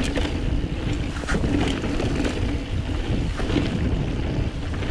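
Wind buffeting an action camera's microphone as a 2017 Whyte T-130S full-suspension mountain bike rolls down a dirt trail. Under it is a steady rumble from the tyres and bike, with a few sharp knocks and rattles as it hits bumps.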